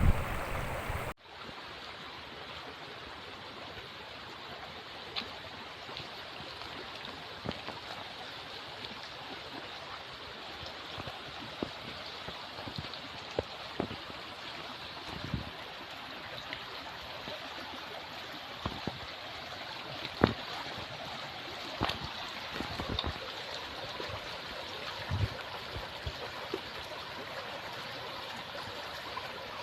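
Running stream water, a steady rushing flow dotted with short sharp clicks and small splashes.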